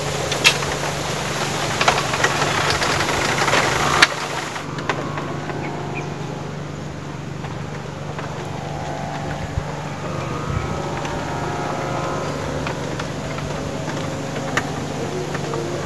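A steady low engine-like hum, like a small motor running, throughout. A few sharp clicks sound in the first four seconds.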